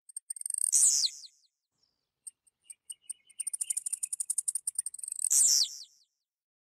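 Blue-black grassquit (tiziu) singing: twice, a run of rapid high ticks builds into its loud, short, buzzy falling note, with scattered ticks in between.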